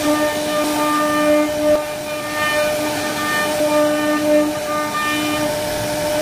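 CNC router spindle whining steadily as its bit carves a relief pattern into a wooden door panel, the tone growing louder and softer in stretches as the cut goes on.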